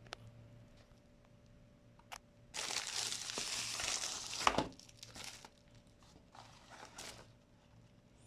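Packaging of a tripod stand crinkling as it is handled, in one loud stretch of a couple of seconds ending with a sharp crackle, followed by a few fainter rustles and a couple of small clicks.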